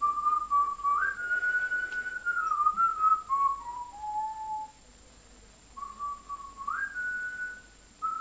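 A tune whistled as a single melody line. One phrase steps up and then down over about four and a half seconds; after a pause of about a second, a second phrase begins the same way.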